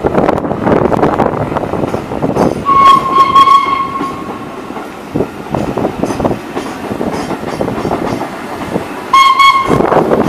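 Railway coaches rolling past with a loud rumble and the click of wheels over rail joints. A steam locomotive's single-note whistle sounds twice: a blast of about a second and a half about three seconds in, and a short toot near the end as the LNER Peppercorn A1 Pacific 'Tornado' draws level.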